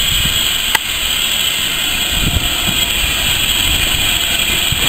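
Small steam tank locomotive rolling slowly toward the platform, with a steady hiss of steam and a few soft low chuffs. A sharp click about three-quarters of a second in.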